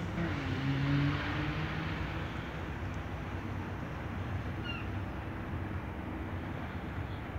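Motorboat engine running with a low steady hum as the boat passes, over a constant wash of wind and water noise. A short wavering tone dips and levels off about a second in.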